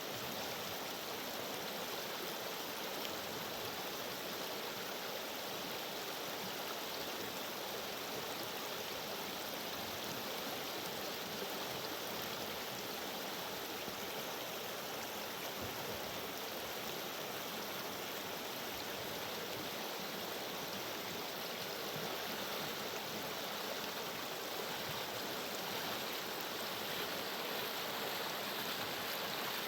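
Fast mountain river rushing steadily over rapids.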